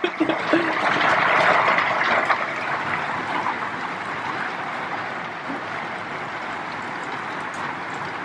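Heavy rain pouring down in a steady hiss, with scattered drop taps. It is loudest about a second in, then eases slightly and holds steady.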